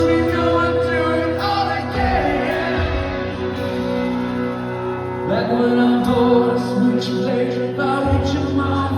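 Live rock band playing a song over sustained chords, with singing.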